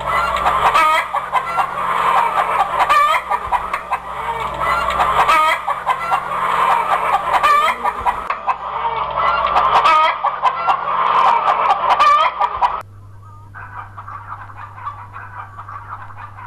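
Chickens clucking, a dense run of short calls that stops abruptly about 13 seconds in, leaving a much quieter background.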